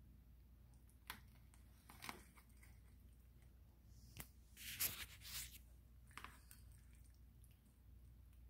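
A metal serving spoon scooping baked mac and cheese out of an aluminium foil pan. There are a few faint clicks and one louder, slightly longer noise about five seconds in, over a low steady hum.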